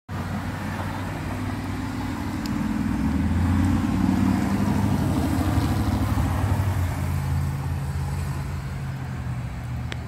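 A motor vehicle's engine running with a low, steady hum, growing louder a few seconds in and easing off again toward the end.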